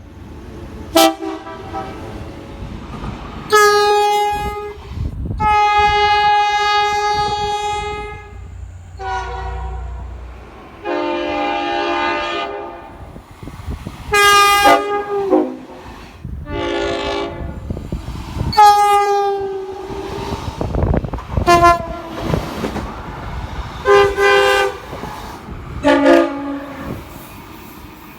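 Train horns sounding a string of blasts, some held for about three seconds and others a second or less, with the chord changing from one horn to the next.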